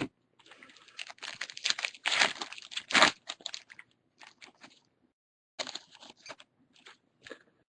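Crinkling and crackling of a foil trading-card pack wrapper being torn open and handled, loudest in the first three seconds, then a few fainter rustles as the cards are handled.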